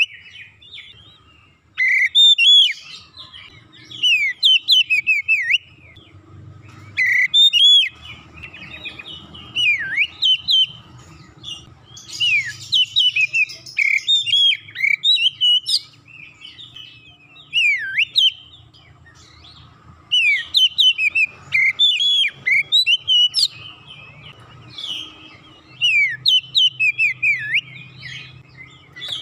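Oriental magpie-robin singing vigorously in loud bursts of quick sweeping whistled notes, a new phrase every second or two with short pauses between.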